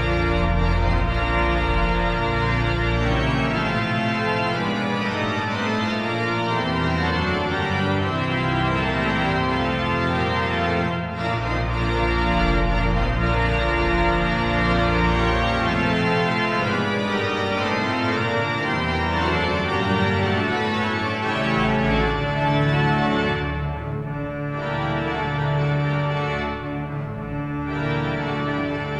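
Church organ playing a postlude: full sustained chords over a bass line that changes note every second or two.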